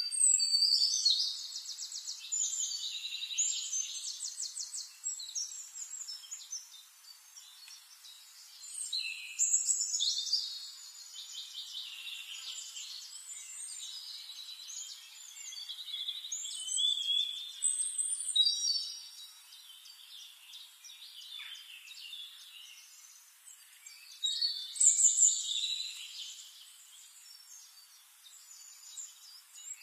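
Birds chirping and singing in bursts of quick, high-pitched trills, several times over with quieter stretches between.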